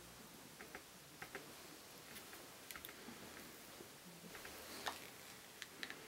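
Faint, scattered small clicks and handling noises of fingers working a plastic e-bike brake sensor and its magnet at a bicycle brake lever.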